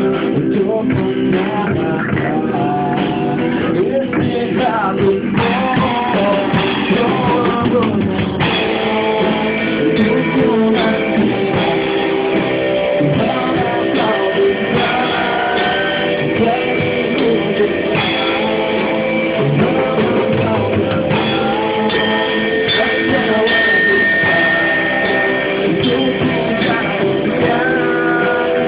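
Beginner rock band playing live in a small room: drum kit with cymbals, electric bass and guitar, with a voice singing over them. The recording is loud and muffled, with the highs cut off.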